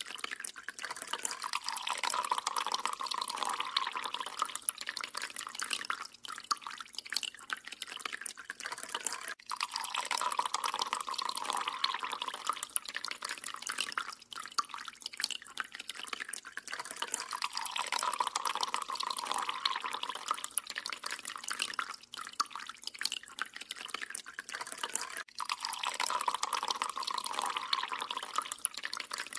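Thin stream of tap water trickling and splashing into a stainless steel kitchen sink while a cat paws at it. The splashing swells and fades about every eight seconds.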